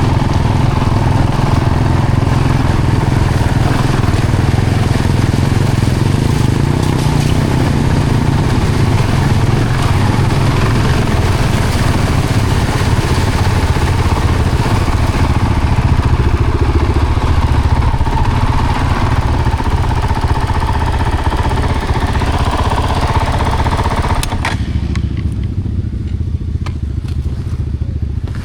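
Vehicle engine running steadily under way, a strong low rumble with road and wind noise over it; about three-quarters of the way through the higher-pitched noise drops away suddenly and only the low engine rumble continues.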